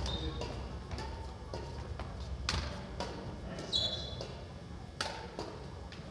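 Badminton racket striking a shuttlecock: a few sharp, separate knocks, ringing briefly in the gym hall. A short shoe squeak on the wooden court floor comes just before the last knock.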